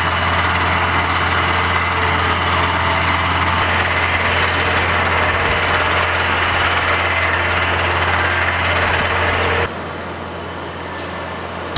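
A steady machine drone with a strong low hum, engine-like and unchanging, that drops to a quieter level near the end.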